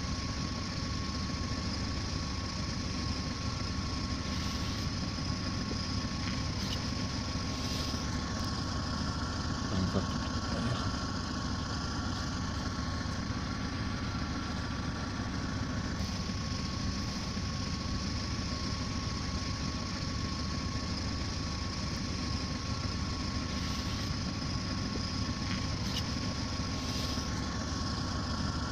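Car engine idling steadily, heard from inside the cabin, with a thin steady whine over it.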